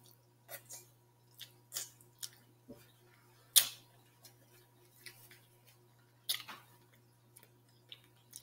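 Close-up mouth sounds of eating: irregular wet smacks and clicks from chewing and finger-licking, one every half second to a second, the loudest about three and a half seconds in and again just past six seconds.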